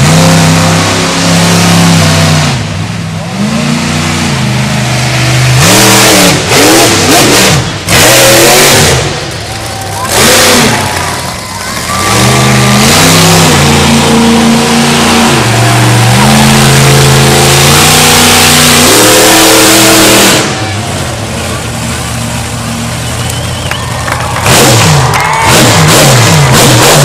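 Monster truck engine revving hard in repeated surges, the pitch climbing and falling as the throttle is opened and closed, with brief dips between bursts and a long loud stretch in the middle.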